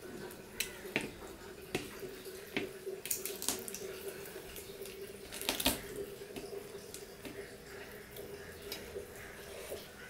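Close-miked wet eating sounds of a man eating fish curry and rice by hand: moist chewing and smacking, with irregular sharp wet clicks, the loudest a little past the middle.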